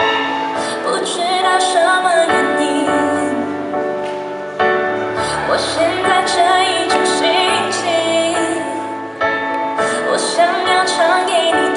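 Pop song playing, a female voice singing the melody over a steady backing track.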